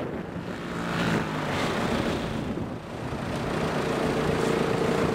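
Bashan 250 quad's engine revving as it rides across loose sand. The pitch climbs, sags briefly about three seconds in, then builds again.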